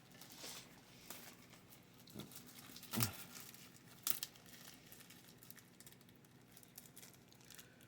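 Plastic shrink wrap being picked at and peeled off a VHS clamshell case: faint crinkling and tearing, with louder crackles about three and four seconds in.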